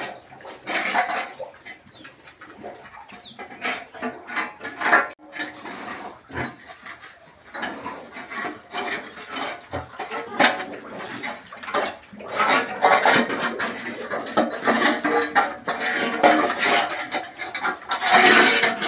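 Pigs grunting and snuffling among irregular knocks and clatter. Near the start there are two short falling bird chirps.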